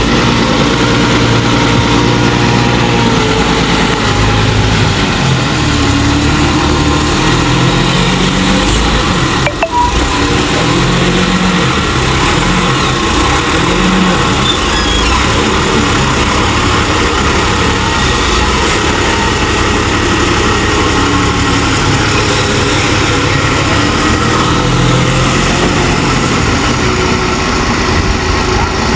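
Heavy machinery engine running steadily, its pitch rising and falling as the load or revs change.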